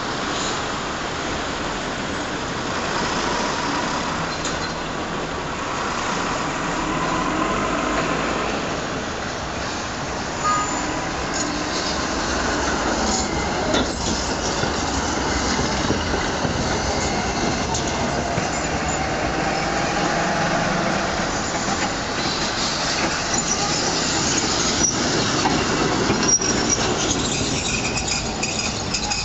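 Modern low-floor tram running along street track and passing close by, its wheels rolling on the rails with faint thin squeals as it takes the curve. Street traffic grows louder near the end.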